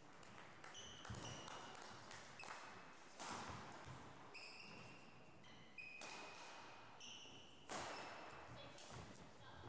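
Faint badminton rally: sharp racket hits on the shuttlecock and footfalls on a wooden court, with short high squeaks of players' shoes on the floor in between.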